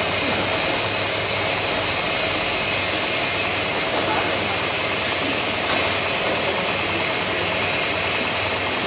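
CKPE-1200 bubble film making machine running: a steady machine noise with a constant high-pitched whine over a hiss.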